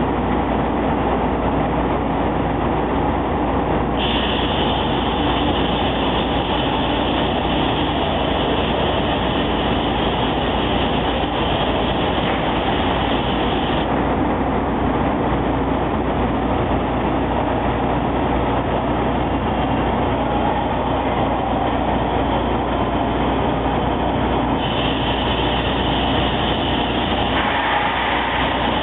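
Automatic vertical glass-drilling machine running with a steady mechanical noise. A higher hiss comes in for about ten seconds, drops out, and returns near the end.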